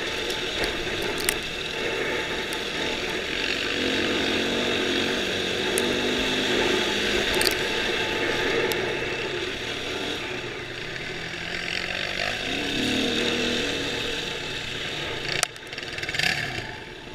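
Dirt bike engine under throttle on a sandy track, its pitch rising and falling as the rider works through the gears, with a few sharp clicks. Near the end the throttle comes off and the engine sound drops.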